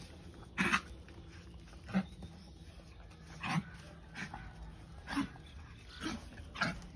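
Dogs yelping and whimpering in rough play: short, sharp cries that come every second or so.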